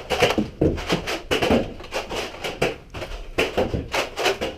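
Nerf blasters firing and foam darts striking office surfaces: an irregular run of sharp clacks and knocks, about three a second.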